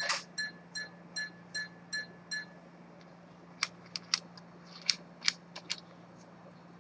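Antique repeater pocket watch chiming: its hammer strikes the gong seven more times at one even pitch, a little faster than two strikes a second, and stops about two and a half seconds in. Then a few sharp clicks as the silver hunter case is handled and its front cover snapped open.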